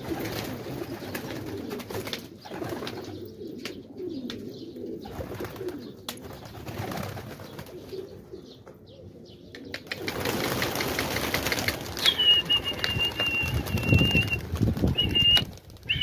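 Domestic pigeons cooing, with wing flaps. About ten seconds in a louder rushing stretch begins, and a long steady high whistle comes in shortly after, with a short one near the end.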